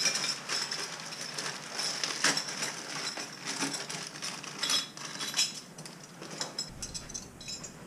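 Small metal plumbing parts clinking and rattling as they are handled and fitted together, a quick run of sharp clicks.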